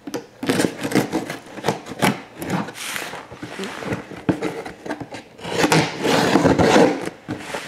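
A knife cutting through packing tape and cardboard on a shipping box, in a series of short scraping strokes, with a longer, louder stretch of scraping about five and a half seconds in.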